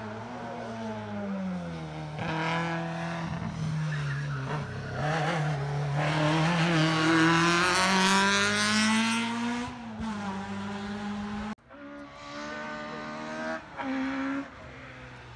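Hill-climb race car engine at full effort, its revs dropping and climbing again with each gear change, louder as the car comes past about six to ten seconds in. The sound cuts off abruptly about two-thirds through, and a quieter engine carries on after the cut.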